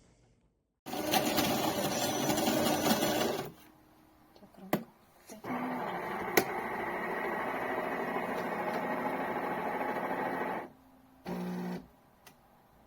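De'Longhi TrueBrew coffee maker running: a loud, noisy burst lasting about two and a half seconds, a couple of sharp clicks, then about five seconds of steady mechanical whirring, and a short buzz near the end.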